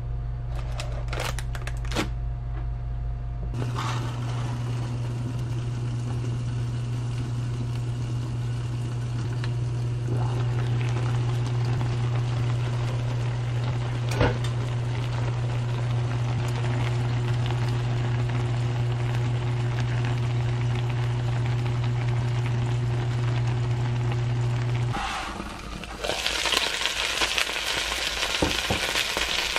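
Steady low electric hum of a kitchen cooking appliance running while food cooks. The hum cuts off suddenly near the end, and a crackling sizzle of hairtail fish frying in its oil follows.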